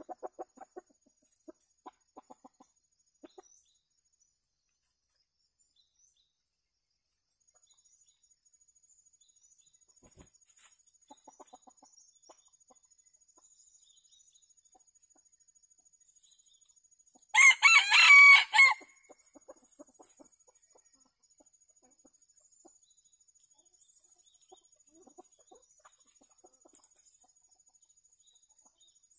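Red junglefowl clucking softly in short bursts at the start and faintly again midway, then a junglefowl rooster crows once, loudly, for about a second and a half past the middle.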